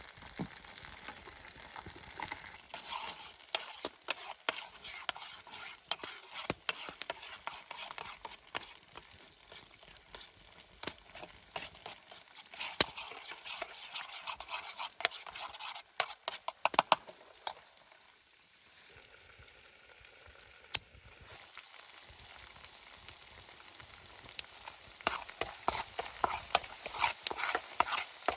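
Food sizzling as it fries in oil in a pan while being stirred, with many sharp clicks and scrapes of the utensil against the pan. The sizzle dies down for a few seconds past the middle, then picks up again.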